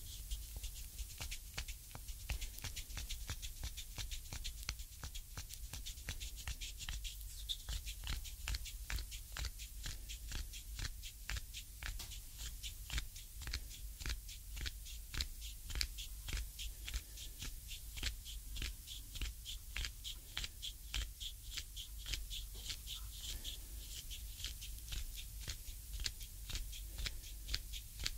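Reflexology stick pressed and worked in short grinding strokes into the oiled sole of a foot, making a steady series of small sharp clicks of the stick and oiled skin, about two or three a second.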